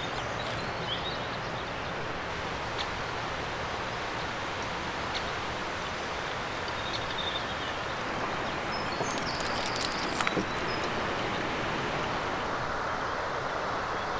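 Steady outdoor background rush, with faint bird chirps now and then and a few light clicks about nine to ten seconds in.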